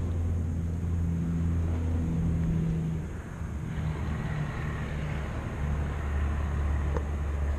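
Buick Wildcat's V8 idling steadily with the hood open: a low, even hum that shifts slightly in pitch a few times.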